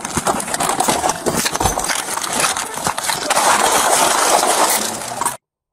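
Loud rustling and knocking from a chest-worn police body camera as the officer opens his car door and climbs out onto the road, with many sharp clicks and a heavier thump; the sound cuts off abruptly near the end.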